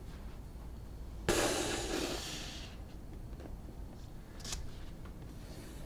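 Cardboard model-kit box brought down and slid onto a leather desk mat: a sudden scraping rush about a second in that fades over a second and a half, then a light tap a few seconds later, over a low steady room hum.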